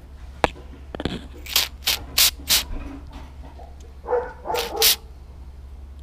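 Flex Seal liquid-rubber aerosol can spraying in short bursts, four in quick succession, then two more near the end, as a hole in a tire tread is filled. A dog barks about four seconds in.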